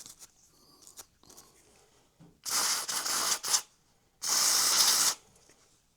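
Two short hissing bursts from an aerosol spray can, about a second each, starting and stopping sharply, one about two and a half seconds in and one just over four seconds in.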